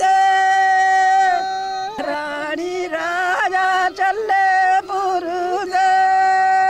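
An elderly woman singing a Punjabi folk boli in a single voice. She holds a long, steady note at the start, wavers through an ornamented stretch in the middle, and settles into another long held note near the end.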